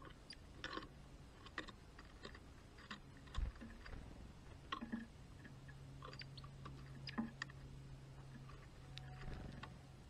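European greenfinch cracking sunflower seeds at a wooden feeder tray: faint, scattered sharp clicks and cracks, about one a second.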